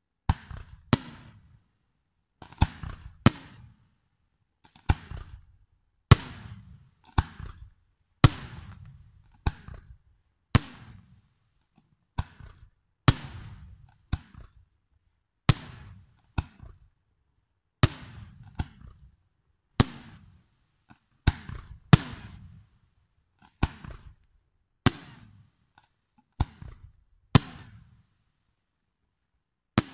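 Aerial firework shells bursting one after another: about two dozen sharp bangs, roughly one a second and often in close pairs, each trailing off in a short echoing rumble.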